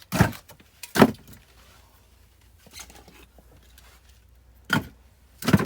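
Split firewood pieces knocking as they are moved and dropped: four sharp wooden knocks, two close together at the start and two near the end.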